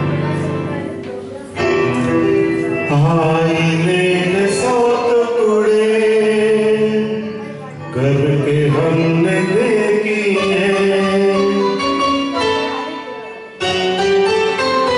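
A man singing a song into a microphone over instrumental music accompaniment, with long held notes that bend and glide in pitch and brief pauses between phrases.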